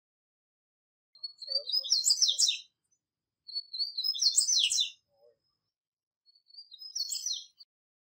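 Wild male double-collared seedeater (papa-capim, or coleiro) singing three short song phrases with pauses between. Each phrase opens with a few quick high notes and runs into a dense, rapid twittering burst.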